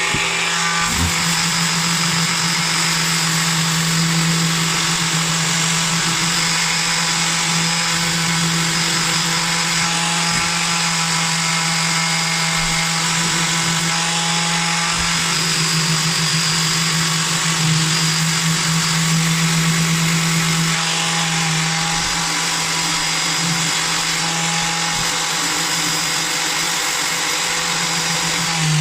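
Electric sander with a 120-grit disc running steadily at full speed, grinding the surface of a steel axe head.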